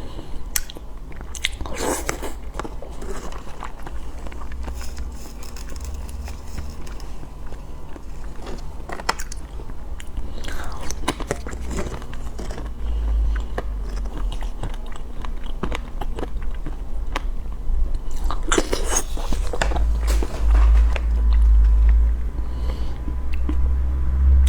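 A person biting and chewing food close to the microphone, with scattered clicks and wet smacks, over a steady low rumble.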